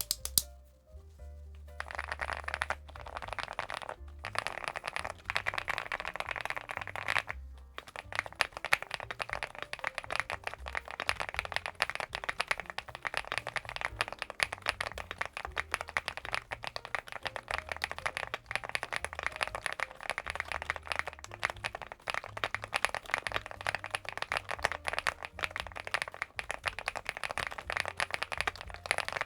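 Rapid typing on a gasket-mounted CIDOO V75 Plus mechanical keyboard, a fast stream of key clacks with short pauses twice early on, over background music with a low bass line.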